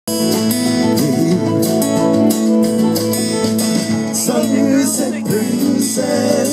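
Live rock band playing, guitar to the fore, with wavering melodic lines coming in about four seconds in.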